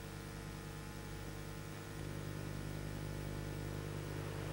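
Steady electrical mains hum with a low buzzing stack of overtones under a constant hiss: tape and line noise on an old home-video soundtrack, with no distinct sound events.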